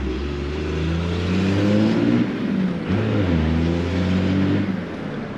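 1997 Dodge 2500's 12-valve 5.9 L Cummins inline-six turbo diesel pulling hard under full throttle through the NV4500 manual transmission: engine speed climbs, drops on a quick upshift about three seconds in, climbs again in the next gear, then falls off as the throttle is lifted near the end.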